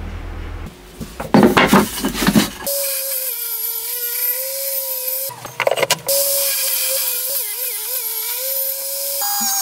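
Trim router motor running with a steady high whine, its pitch wavering briefly as if under load and stepping higher near the end. Two sets of sharp wooden knocks break in, one about a second in and one around the middle.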